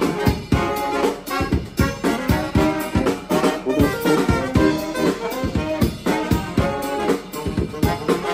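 A brass band playing live: saxophones, trombone, trumpet and sousaphone over a drum kit keeping a steady beat.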